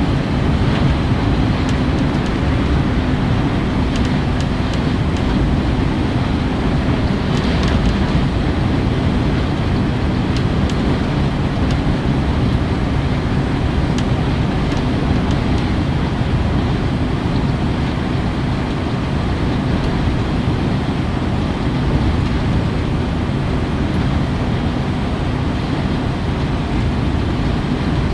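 Steady driving noise inside the cab of a DAF XG+ truck at motorway speed: engine drone and tyre-on-road rumble, with a steady low hum running through it.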